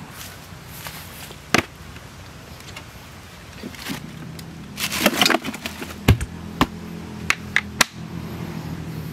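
Camp gear being handled over a low steady hum: a single knock about a second and a half in, a short rustling clatter around five seconds in, then several sharp clicks and taps in quick succession.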